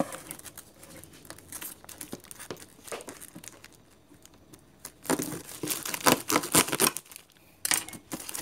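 Plastic shrink wrap on a parcel being crinkled and torn open by hand: scattered crackles, a louder stretch of tearing about five seconds in, and a short burst near the end.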